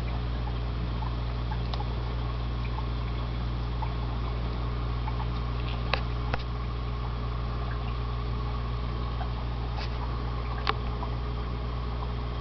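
Aquarium pump and filter running: a steady low hum with water bubbling and trickling, and a few faint clicks about midway and near the end.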